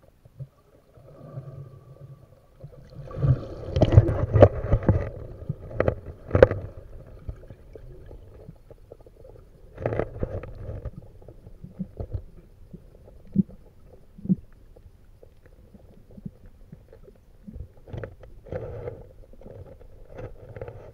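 Muffled underwater water sounds: irregular swishes, gurgles and thumps from a swimmer moving, with bubbles. The busiest stretch comes a few seconds in.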